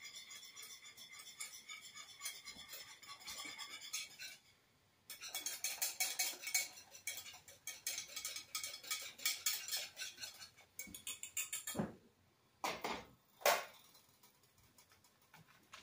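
Potatoes being whipped by hand in a pot: a utensil clatters rapidly against the pot, with a short pause about four seconds in. Near the end come two sharp knocks.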